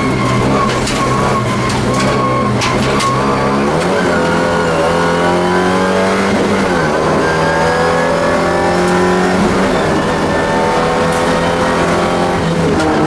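Alfa Romeo 75 race car's engine heard from inside the stripped cabin, running hard and rising and falling in pitch with the throttle as it accelerates through a slalom course, with a few short clicks.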